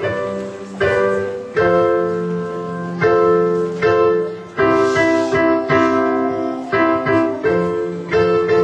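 Piano playing slow chords that are held and left to ring, with a new chord struck every second or so.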